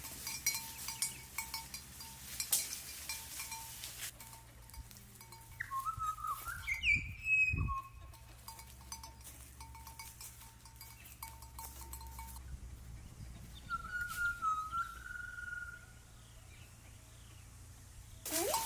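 A bell on a farm animal clinking on and off as the animal moves. There are a couple of short, high calls around the middle and near the two-thirds mark.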